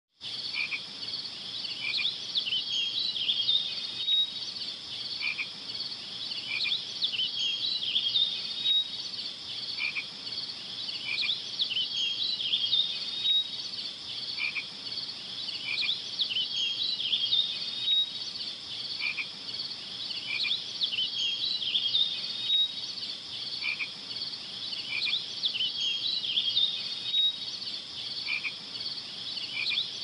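Chorus of small frogs calling: dense high-pitched chirping and trilling with short regular calls beneath. The same pattern repeats about every four to five seconds, like a looped ambience track.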